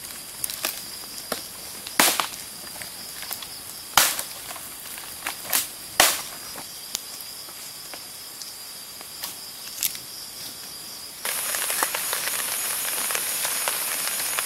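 Wood campfire crackling, with sharp pops every second or so, the loudest about two, four and six seconds in, over a steady high insect trill. About eleven seconds in, this gives way to a louder steady hiss of cooking on a camp gas stove.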